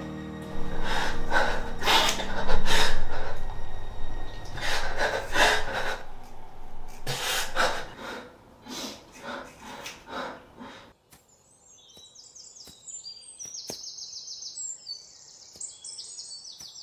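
Heavy, ragged breathing, with loud gasping breaths coming every half second or so, dying away about ten seconds in. Then faint, high bird chirps over quiet.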